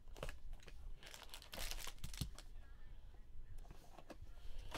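Cardboard trading-card box being torn open and handled: several short papery tearing and rustling sounds, the longest about a second and a half in.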